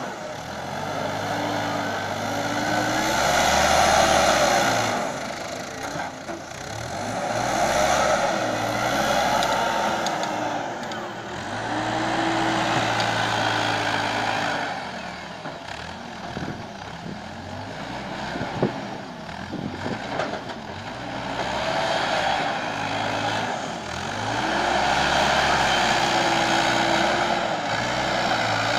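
Bobcat TL470 telehandler's diesel engine revving up and dropping back again and again, swelling about every four to five seconds as the machine scoops manure and lifts it into a trailer. A single sharp knock comes about two-thirds of the way through.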